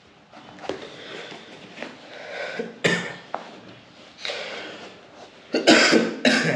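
A sneaker being handled and bent in the hands, with rustling and rubbing, broken by a few short sharp bursts: one about halfway through and two loud ones near the end.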